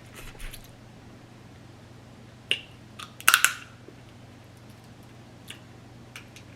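Sharp clicks and cracks of blue crab being broken apart and eaten. There is a single click about two and a half seconds in, a louder cluster of cracks just after three seconds, and a couple of lighter clicks near the end.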